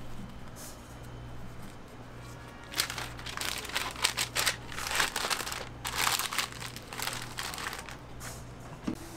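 Paper wrapper crinkling and rustling as it is folded around an ice cream waffle by gloved hands, in a quick run of crackles from about three seconds in until near the end.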